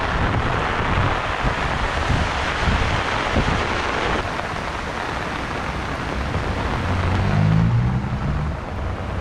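Heavy rain pouring, a steady loud hiss, with wind buffeting the microphone in low rumbles. About seven seconds in, a low engine hum joins it.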